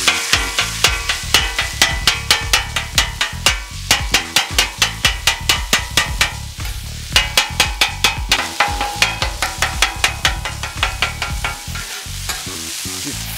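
A metal spatula chops and scrapes ground beef on a hot steel Blackstone griddle top: rapid sharp clacks, several a second, over the sizzle of the frying meat. There is a short lull about halfway through and again near the end.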